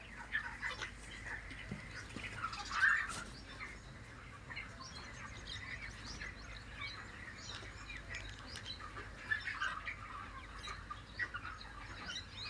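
Many chicks in a poultry shed cheeping, lots of short high peeps overlapping, over a steady low hum.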